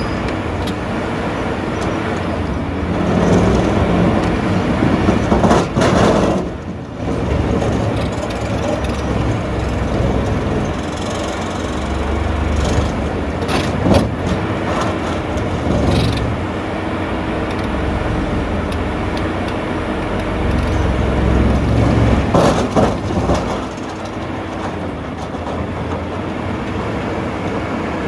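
Terex RH30F hydraulic excavator running under load while its Xcentric XR80 vibrating ripper chisels into a quarry rock face: a steady engine and hydraulic drone that swells and eases with the work, broken by several sharp cracks of rock giving way.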